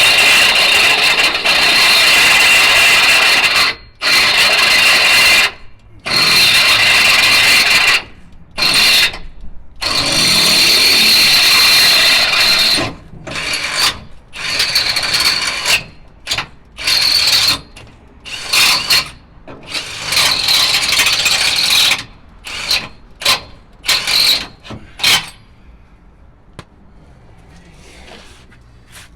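Electric drill boring holes through steel, with a steady high whine from the bit. Long runs of drilling give way to short stop-start trigger bursts, and it stops about 25 seconds in.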